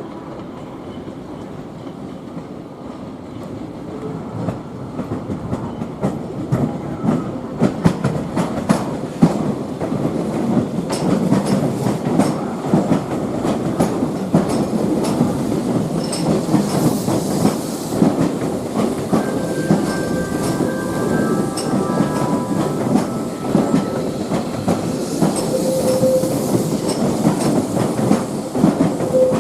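A train running past, its wheels clicking over the rail joints, growing louder over the first several seconds. Brief squealing tones come from the wheels a little past the middle.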